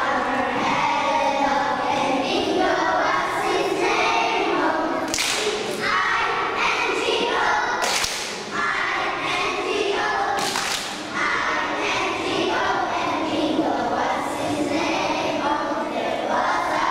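Group of young children singing together, with three loud thumps about five, eight and ten and a half seconds in.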